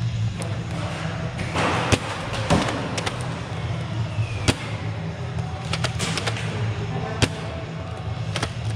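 Foam dart blasters firing in a game, with about a dozen sharp cracks and snaps at irregular intervals as shots go off and darts smack into cover, over a steady low hum.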